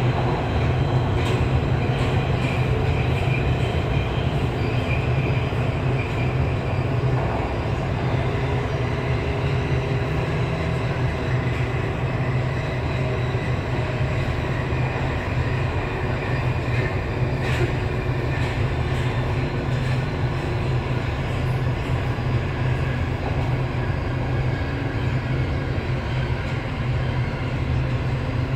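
Alstom Metropolis metro train running through a tunnel, heard from inside the front car: a steady low rumble of wheels on rail, with a faint high whine in the first several seconds.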